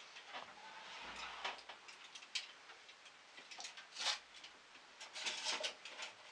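Irregular light clicks and knocks as an electric stove's oven door is opened and a foil-lined baking dish is set inside the oven. The sharpest click comes about four seconds in, and a cluster of knocks follows a second later.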